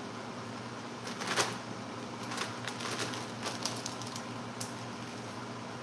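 A plastic bag rustling and crinkling as it is handled, loudest about a second and a half in, followed by light clicks and taps of things being moved on a countertop, over a steady low hum.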